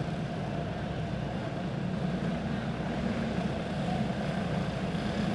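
Several single-cylinder four-stroke OHV clone kart engines running together at steady part throttle, a continuous even drone as the karts circle the dirt oval on the laps before the green flag.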